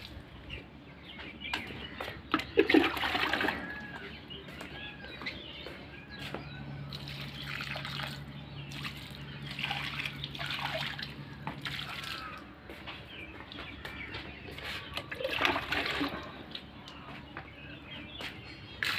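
Water being poured onto the soil of potted plants, splashing and trickling in spells.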